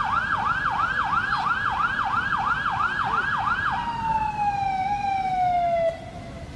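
An emergency-vehicle siren yelping in fast sweeps, about three a second, then switching to one slow wail that falls in pitch and cuts off suddenly near the end. Beneath it runs a steady rush of floodwater.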